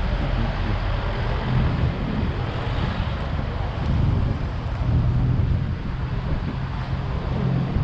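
Steady road traffic noise, vehicle engines running past, with wind noise on the microphone.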